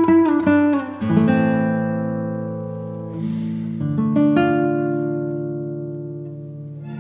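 Background music on acoustic guitar: a few quick plucked notes, then a chord strummed about a second in and another about four seconds in, each left to ring and fade.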